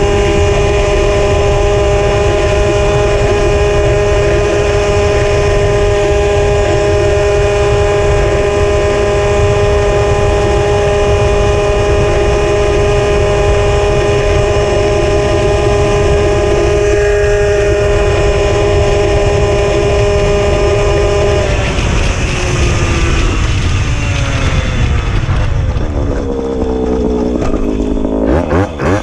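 Puch Maxi moped's single-cylinder two-stroke engine running at a steady speed under heavy wind rumble on the microphone. About three quarters of the way through, the engine note falls steadily as the revs drop. Near the end it wavers unevenly at low speed.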